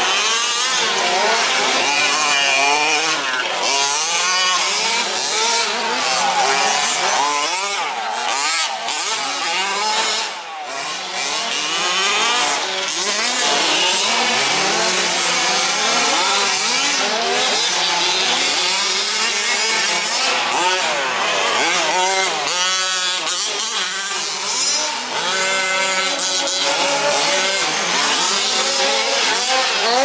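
Several 1/5-scale 4WD remote-control race trucks with small two-stroke petrol engines, revving up and down as they race. Their engine notes rise and fall and overlap throughout.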